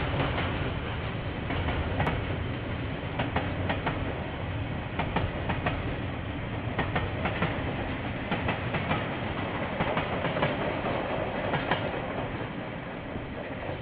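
A KiwiRail train rolling past, with a steady rumble and irregular clicks of its wheels over the rail joints, easing slightly near the end. It is heard through a security camera's microphone, with the highs cut off.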